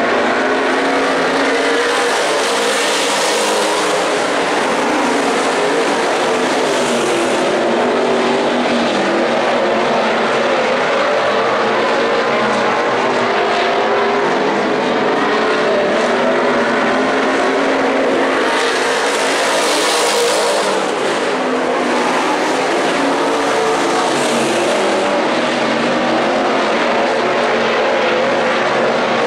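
A pack of IMCA Stock Car V8 engines running hard around a dirt oval. Their pitch shifts as the cars lift and accelerate through the turns, and the sound swells as the field sweeps past about three seconds in and again about twenty seconds in.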